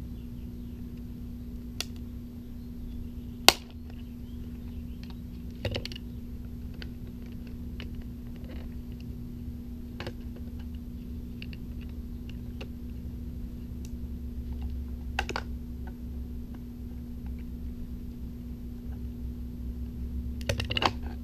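Plastic housing of a Bernzomatic TS3000 torch head being pried and twisted apart with a utility knife: scattered clicks and snaps, the sharpest about three and a half seconds in and a quick cluster near the end, over a steady low hum.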